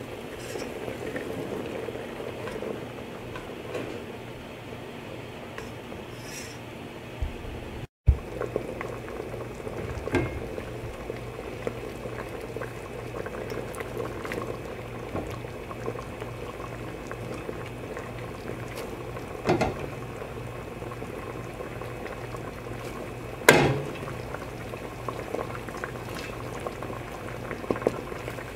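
Creamy pasta sauce simmering and bubbling in a pan, with a few sharp knocks and clinks of utensils against the pan, the loudest about two-thirds of the way through.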